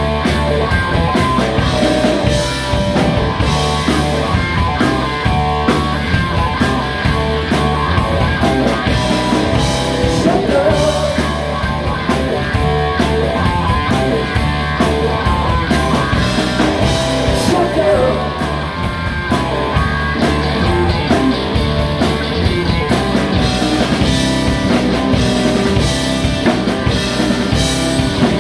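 A live band playing rock: electric guitar over electric bass and a Yamaha drum kit, with a steady drumbeat.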